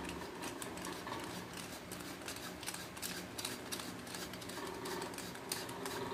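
Faint, irregular clicks and small metallic taps from a stainless-steel automatic livestock syringe being handled and fitted back together.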